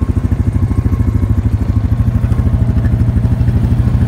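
Vehicle engine running steadily with a fast, even pulsing beat.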